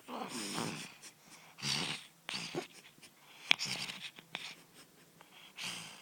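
Sleeping cat snoring: a run of five or so noisy breaths at irregular intervals, the first the longest, with a sharp click in the middle.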